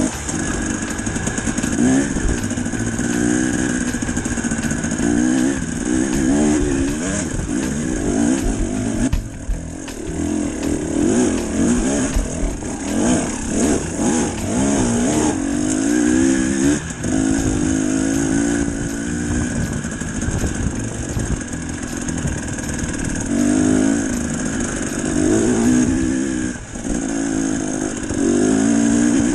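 Enduro dirt bike engine running under the rider, its pitch rising and falling again and again with the throttle as it climbs a dirt trail, with short drops in revs about nine seconds in and near the end.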